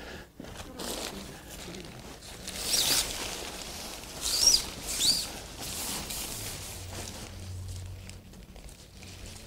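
Nylon tent fabric rustling and swishing as the tent body is handled and pulled into place around its roof poles, with three louder swishes about three, four and a half and five seconds in.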